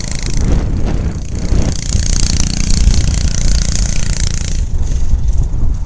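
Homemade ATV's 6 hp Briggs & Stratton single-cylinder engine running as the machine is ridden away.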